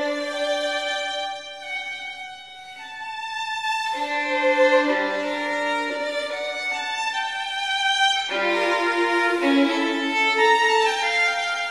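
Background music led by a violin: a slow melody of held notes, each lasting about a second or more.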